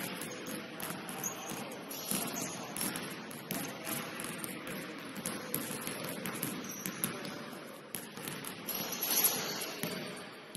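Basketball game sounds in a gym: scattered shoe scuffs, knocks and clicks from play on the court over a steady noisy background.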